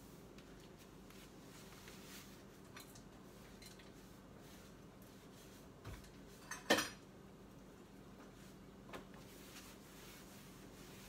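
Dishes and utensils being handled and set down while tidying a kitchen counter: scattered light clinks, with one louder clatter a little past halfway through.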